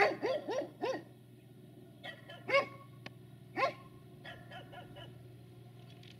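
Dog barking: a quick run of four barks, then single barks about a second apart, fainter toward the end.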